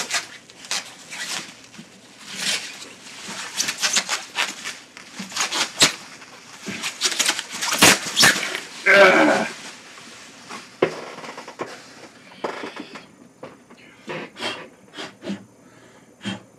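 A white plastic bag rustling and crinkling in irregular bursts as an acoustic-electric guitar is worked out of it. The rustling thins out in the second half, leaving a few light taps and knocks of handling.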